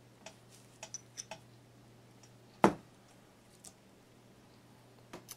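Small sharp clicks and ticks of a metal tool working tape off a small jade figurine piece, then one much louder sharp click a little over halfway through as a hard object is set down on a hard surface. Two more soft clicks come near the end.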